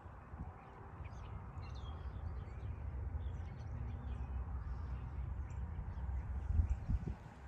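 Outdoor ambience: birds chirping in short, scattered calls over a steady low rumble on the microphone.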